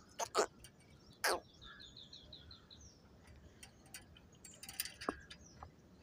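Birds calling: a few short harsh calls near the start, then a quick run of high chirps, about six a second, lasting just over a second.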